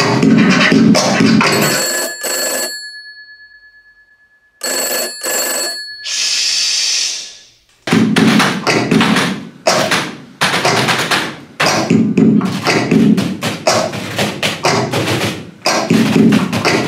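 A fast, funky percussion beat tapped out on office desk objects such as typewriters and rubber stamps. About two seconds in it stops for a bell that rings and dies away, rings again briefly, then gives way to a hiss, and the beat comes back about eight seconds in.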